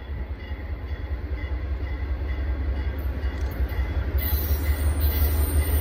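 Canadian National diesel-electric locomotive running light with no cars, its engine's low rumble growing steadily louder as it approaches, with a rising high hiss from the wheels on the rails in the last couple of seconds.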